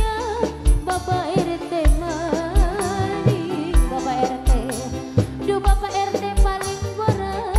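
Live dangdut music: a woman singing a wavering, ornamented melody over a band, with a deep drum beat about every two-thirds of a second and sharper drum hits between.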